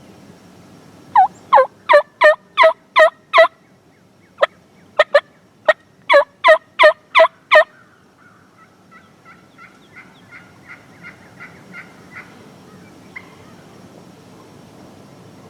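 Turkey yelping: about seven loud, evenly spaced yelps, a few sharp short cutts, five more loud yelps, then a softer, faster string of yelps that trails off.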